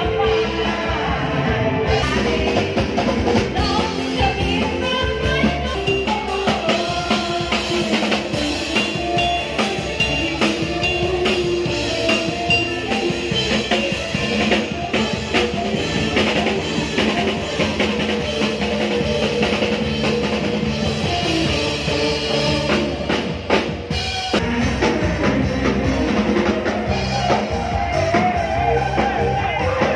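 Upbeat dance music with a drum-kit beat and singing. It dips briefly a little before three-quarters of the way through.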